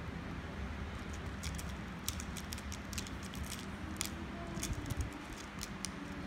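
Small sharp clicks and taps of plastic construction-kit strips, screws and nuts being handled and fitted together, many in quick irregular succession through the middle, over a steady low background hum.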